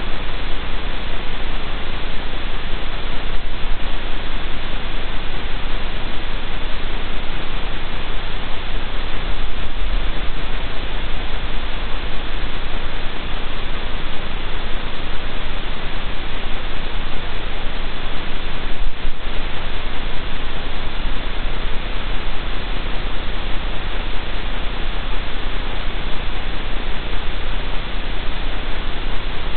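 Steady loud static hiss with a low electrical hum underneath, the noise of the den camera's outdoor microphone feed; a few very faint ticks stand out around 3, 10 and 19 seconds in.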